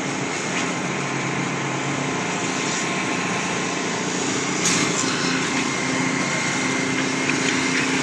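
Steady drone of construction machinery running on site, an engine holding an even pitch. A brief sharp noise comes a little past halfway.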